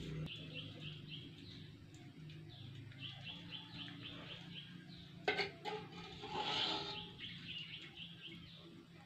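A bird chirping in quick runs of short, repeated notes, about four or five a second, three times over, above a steady low hum. About five seconds in, a single sharp knock, followed by a short hiss.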